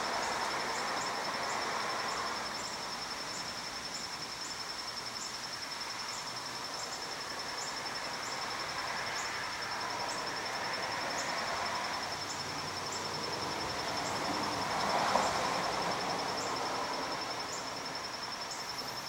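Insects calling: a steady high trill, with a separate short chirp repeating about twice a second, over a soft even outdoor hiss.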